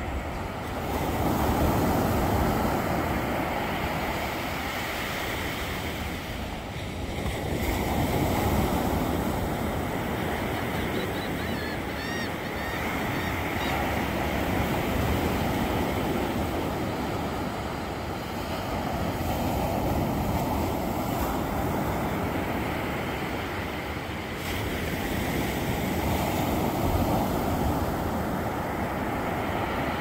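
Small ocean waves breaking and washing up a sandy beach, the surf swelling and easing every five or six seconds.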